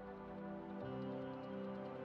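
Background music of steady held chords, changing to a new chord a little under a second in.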